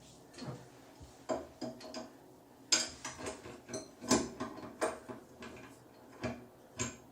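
Irregular metal clicks and clinks, about ten of them at uneven intervals, as chrome shower fittings are handled and tightened.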